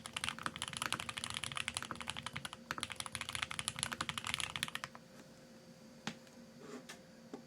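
Typing on a Geonworks F1-8X mechanical keyboard with lubed TTC Speed Silver v2 linear switches and GMK ABS keycaps: a fast run of keystrokes that stops about five seconds in, followed by a couple of single key presses.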